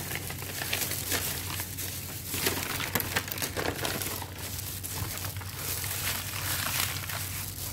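Clear disposable plastic food gloves crinkling and rustling in irregular crackles as gloved hands lay and smooth a sheet of soft rice paper on a plate.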